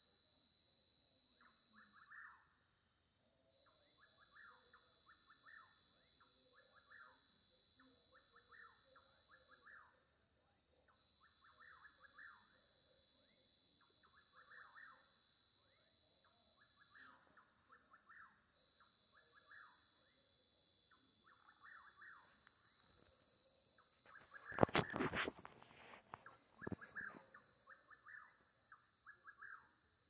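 Night chorus at low level: a steady high-pitched insect trill, with groups of short chirping calls repeating every second or two. The sound cuts out twice for about a second. About 25 seconds in comes a loud crackling noise lasting about a second, the loudest thing heard.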